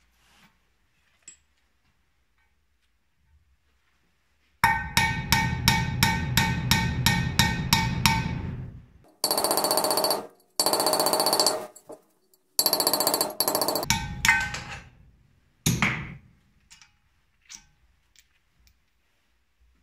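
Steel hammering on valve guides in a Mercedes-Benz OM615 cylinder head. About a second in comes a run of about a dozen sharp, ringing metal strikes, roughly four a second, then three bursts of rapid hammering about a second each, and a few lighter knocks near the end.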